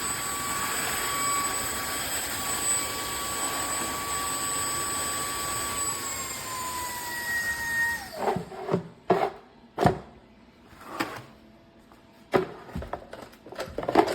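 Cordless wet-dry floor cleaner running with a steady motor whine, then switched off about six seconds in, its whine falling in pitch as the motor winds down. A series of sharp knocks and clatters follows as the machine is handled.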